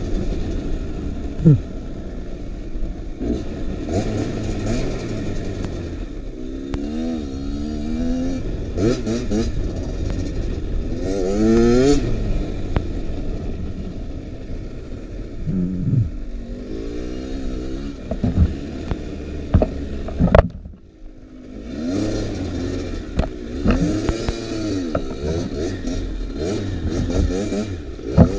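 Kawasaki KX85 two-stroke dirt bike engine revving up and falling back over and over as it is ridden, with knocks and clatter from the bike over the rough ground. About two-thirds of the way in the engine drops off almost to nothing for a moment, then picks up again.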